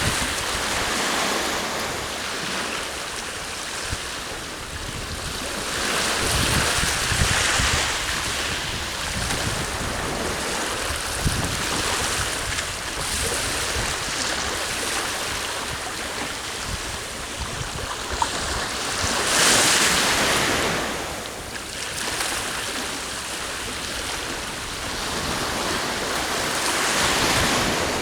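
Sea waves washing onto the shore, swelling and easing off several times, loudest about twenty seconds in, with wind gusting over the microphone.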